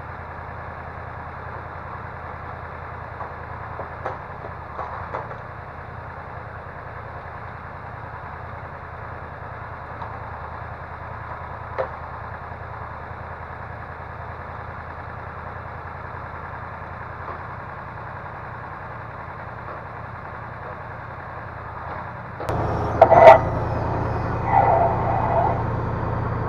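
Diesel engine of a timber loader crane idling steadily, then revving up about three-quarters of the way through as the hydraulics go to work, with a loud knock just after.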